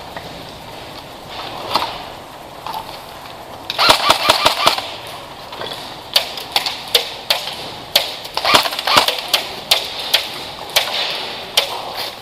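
Airsoft guns firing: a rapid burst of about ten shots about four seconds in, then scattered single shots and short strings of clicks.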